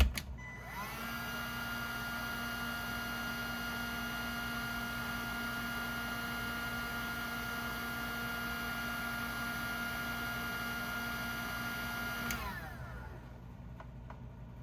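Electric heat gun shrinking heat-shrink tubing over a crimped wire connector. It is switched on with a click, its fan motor spins up to a steady whine with a blowing rush, and about twelve seconds in it is switched off and winds down.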